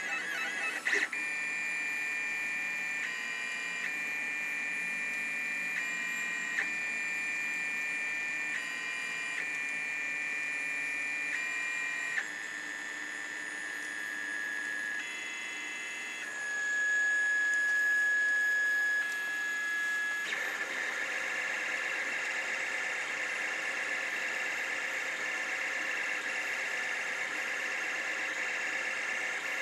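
LittleBits Korg synth kit playing steady electronic tones through its small speaker module, the pitch stepping to a new note every second or two. About two-thirds of the way in it changes to a wavering, buzzier tone that holds to the end.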